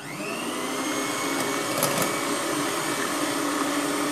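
Electric hand mixer switched on and beating cake batter, its whine rising briefly as it spins up, then running steadily.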